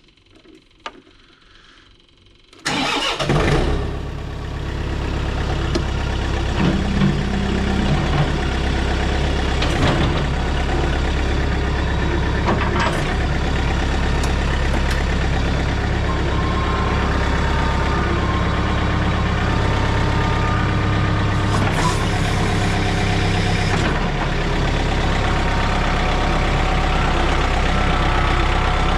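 Mini excavator's diesel engine starting about three seconds in, then running steadily at idle.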